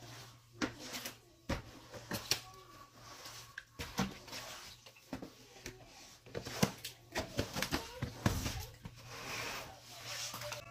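A push broom working across a tiled floor: the bristles scrape and the broom head knocks against the tiles in irregular strokes, with a longer stretch of steady scrubbing near the end.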